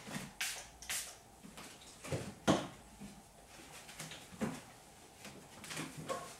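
A hand spray bottle squirting twice near the start, each a short hiss, then a few scattered soft knocks and handling sounds. All of it is quiet.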